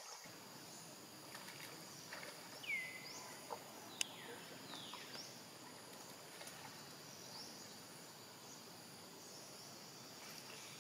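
Faint forest ambience: a steady high insect drone, with a few falling whistled bird calls a few seconds in and a single sharp click at about four seconds.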